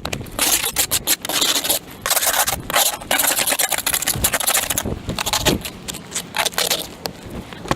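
Irregular scraping and rubbing strokes, each from a fraction of a second to about a second long.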